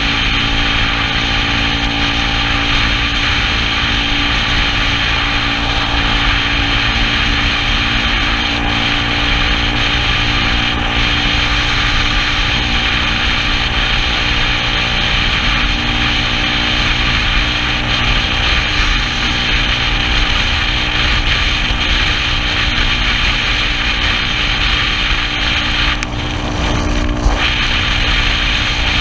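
Yamaha Cygnus scooter's single-cylinder engine running at a steady cruising speed, under steady wind and road noise.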